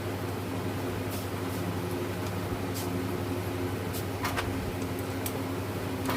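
Steady mechanical hum of a running motor or fan, with a few light clicks and taps scattered through it.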